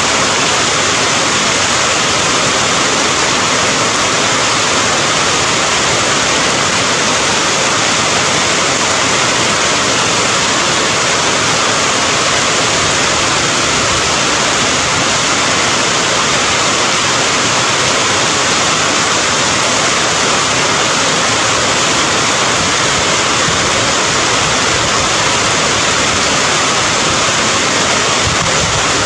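Rain falling steadily in an even, unbroken hiss.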